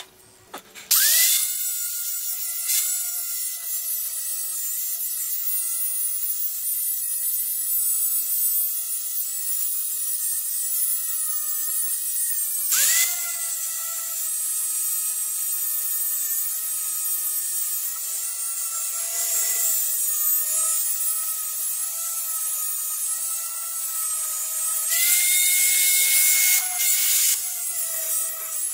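Angle grinder with a disc running against a steel ax head: a steady high motor whine that sags a little under load, over the hiss of the disc on the metal. The grinder spins up about a second in and briefly dips and recovers about halfway through. The grinding hiss grows louder near the end.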